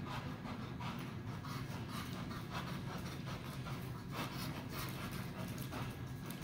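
A horse moving over sand arena footing, its hooves falling softly and unevenly, over a steady low hum.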